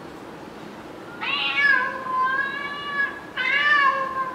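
Domestic cat meowing twice, a long drawn-out meow about a second in and a shorter one near the end, a recording played back from a phone.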